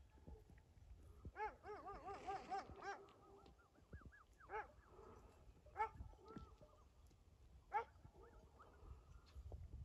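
Shepherd dog barking faintly at a stranger: single barks every second or two, with a fast run of short barks between about one and three seconds in.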